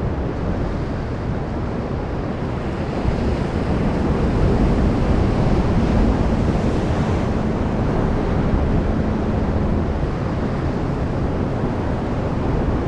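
Sea waves surging and washing ashore: a steady rushing wash that swells a little in the middle.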